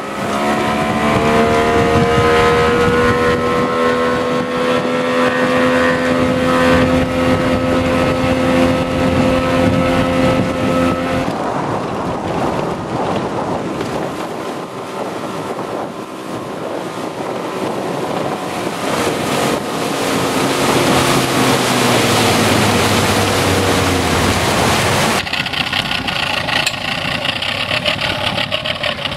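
Yamaha 90 hp two-stroke tiller outboard running the boat at speed, its note climbing slowly as it pulls up through the revs, with wind and rushing water behind it. Later the pitch drops as the boat slows. Near the end there is a sudden change to the outboard idling.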